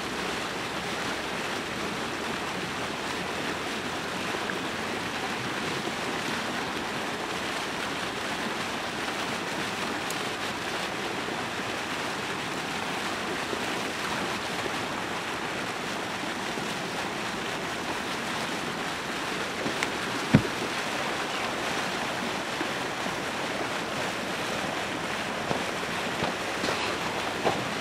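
Steady rushing and splashing of water churning up against the edge of the ice. One sharp knock comes about two-thirds of the way through, and a few small clicks come near the end.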